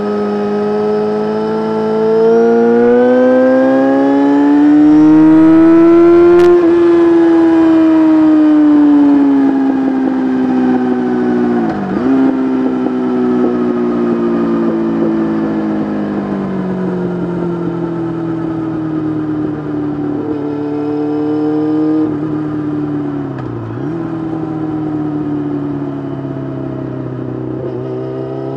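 Yamaha R6 sport bike's inline-four engine heard from the rider's seat while riding: the engine note rises for the first several seconds as it accelerates, then falls slowly as the bike eases off, with two brief dips in pitch.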